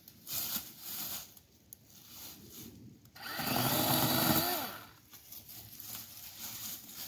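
Battery-powered electric chainsaw running for about a second and a half as it cuts a small sapling near the ground: a steady motor whine with the chain's cutting noise, winding down at the end. Before it, rustling of feet in dry fallen leaves.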